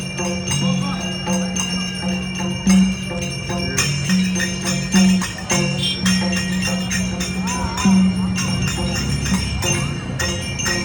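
Live bhajan kirtan devotional music: small hand cymbals struck rapidly and ringing, over a steady low sustained tone that swells at regular intervals.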